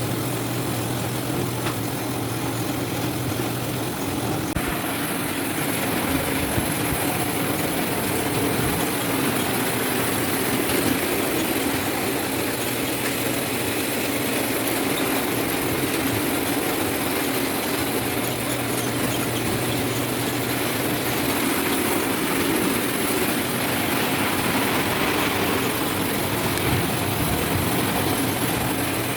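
Citrus sorting machine running with a steady mechanical noise and a low hum.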